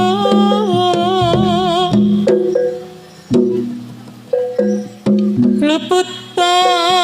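Javanese jaranan ensemble music: struck gamelan metallophone notes and drum hits under a high, wavering melody line. The melody drops out after about two seconds, leaving sparse struck notes, and returns near the end.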